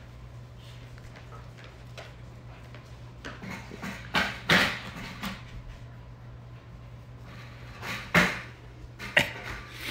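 A few sharp knocks and bumps, loudest about four seconds in and again about eight seconds in, over a steady low hum.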